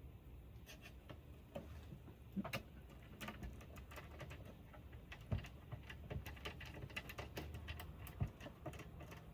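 Irregular light clicks and ticks of a screwdriver and screw working against the oscilloscope's chassis as the last screw is driven in, with a few louder taps.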